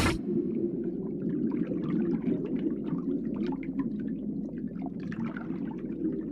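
Moving water: a steady low rush with many small bubbling pops.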